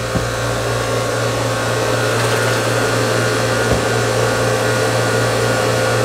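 Loud, steady hum and whir of machinery running in a boat's engine room: a low drone with a higher steady tone over it and a hiss.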